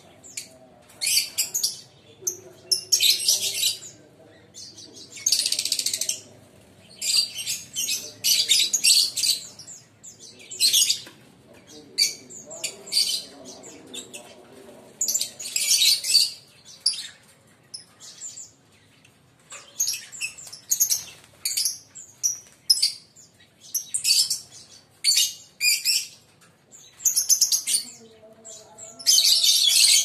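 Lovebirds chattering: a steady run of shrill, high-pitched chirps and screeches in short bursts, several every few seconds.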